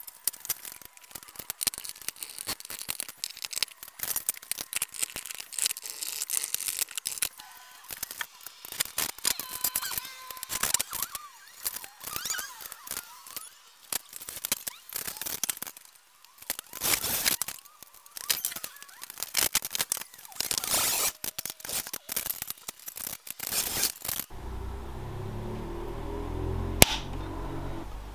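Busy, irregular clicking, tapping and rustling of hand work on the light and conduit installation; about 24 seconds in, music with a stepped bass line starts, and one sharp click comes near the end.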